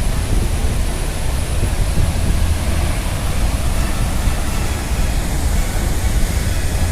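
Athirappilly Falls: the steady, loud rush of a large waterfall, with a deep rumble under it.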